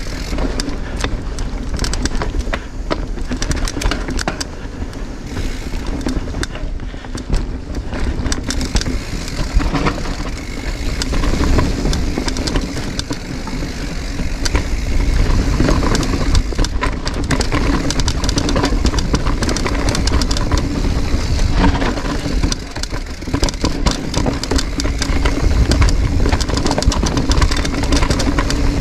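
Giant Reign full-suspension mountain bike descending a rough, rocky downhill trail: a continuous rumble of the tyres over rock and roots with a steady stream of sharp clacks and rattles from the chain and frame, a little louder from about halfway through.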